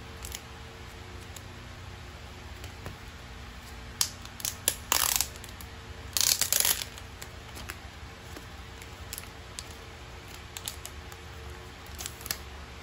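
Hands picking at and tearing open the clear plastic wrap of a card set: a few sharp clicks, then two short bursts of plastic crinkling and tearing about five and six seconds in, with light handling ticks around them. A low steady hum runs underneath.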